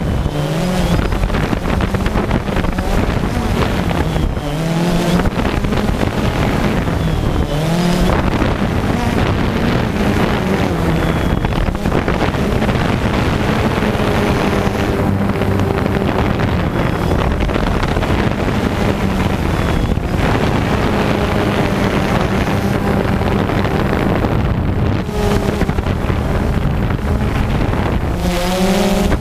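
DJI Phantom 2 quadcopter's electric motors and propellers buzzing steadily in flight, the pitch swooping up and down briefly a few times as the rotor speeds change, with wind noise on the onboard GoPro's microphone.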